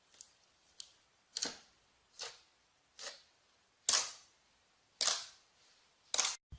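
Slime being squeezed and pressed by hand, giving a series of crisp pops and crackles about once a second, each fading quickly.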